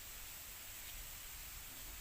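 Bamboo leaves rustling faintly in the wind, an even steady hiss with a low rumble underneath.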